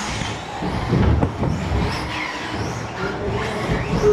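RC race cars running on a track, their motors whining up and down in pitch as they speed up and slow down.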